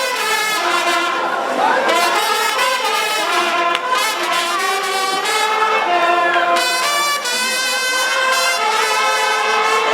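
Brass band playing a tune, several horns sounding held notes together in harmony.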